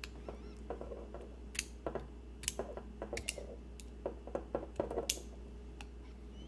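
Irregular small clicks and taps of metal lock parts and tools being handled while a lock cylinder is disassembled, about a dozen over the first five seconds, over a faint steady hum.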